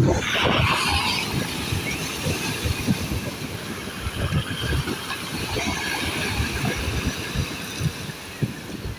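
Sea waves washing in, with a hissing surge of breaking surf about a second in. The waves are under a steady, uneven low rumble of wind buffeting the microphone.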